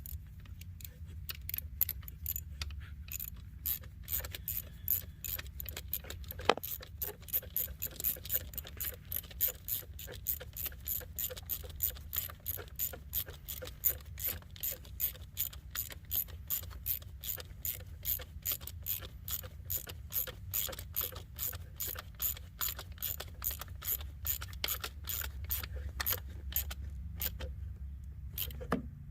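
Ratchet wrench clicking steadily, about two or three clicks a second, as it runs down the small hold-down bolt of an ignition coil pack on a Ford 4.6 V8.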